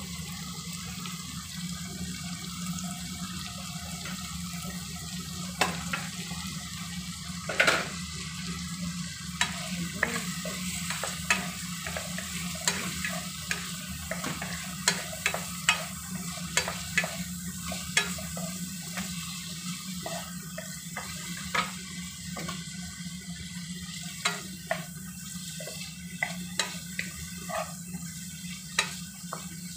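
Cucumber, garlic and dried shrimp sizzling in a nonstick frying pan as a wooden spatula stirs them, knocking and scraping against the pan in frequent sharp clicks, about one a second. A steady low hum runs underneath.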